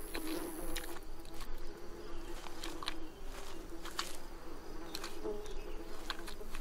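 Flies buzzing steadily around a hare carcass, with irregular sharp clicks and crackles as a big hairy armadillo chews and tears at the meat.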